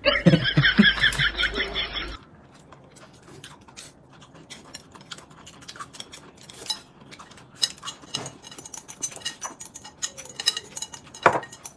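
Chopsticks clicking and tapping against porcelain bowls, with scattered small clinks as noodles are eaten. It is preceded by a loud added sound clip with a rapid warble that cuts off sharply about two seconds in.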